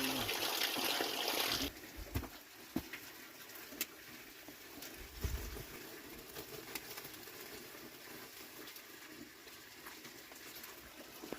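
Rushing water of the waterfall, a steady loud hiss that cuts off abruptly about a second and a half in. It gives way to a much quieter stretch with scattered faint clicks and taps.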